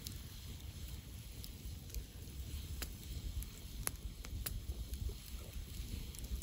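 Campfire crackling, with a few sharp pops about three and four seconds in, over a low steady rumble.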